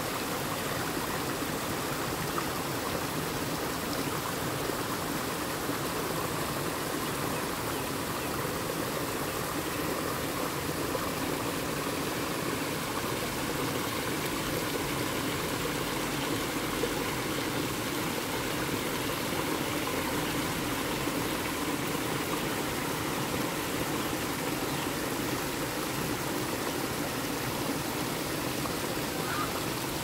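Water flowing steadily in a stream, an even rushing without breaks.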